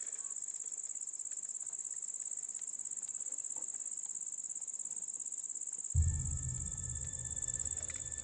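Steady, high-pitched chirring of an insect chorus, pulsing very fast without a break. About six seconds in, a low rumble joins it.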